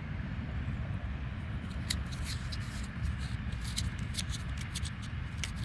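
Fingers rubbing dirt off a small metal dog tag to read its date: scattered light clicks and scrapes over a low rumble on the microphone.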